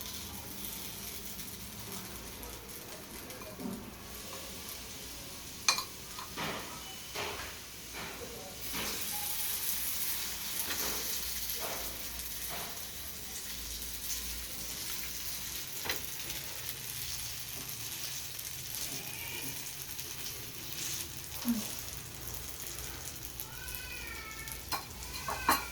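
Potato pancake batter sizzling in hot oil in a frying pan, the sizzle getting louder about a third of the way in. Now and then a utensil clicks and knocks against the pan.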